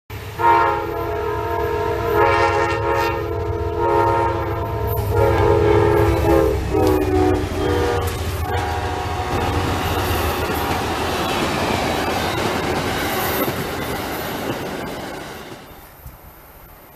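Passenger train's multi-tone air horn sounding several blasts, its pitch dropping partway through as the locomotive passes, followed by the rumble and clatter of the train's cars rolling by, fading out near the end.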